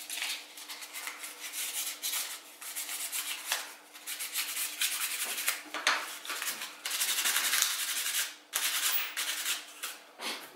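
Kydex sheath being sanded by hand with a sheet of sandpaper: a long run of quick, uneven back-and-forth strokes that stop shortly before the end.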